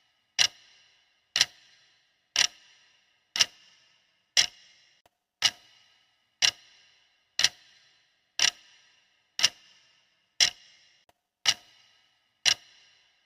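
Clock-style ticking sound effect of a countdown timer: one sharp tick every second, each with a short ringing tail, perfectly even.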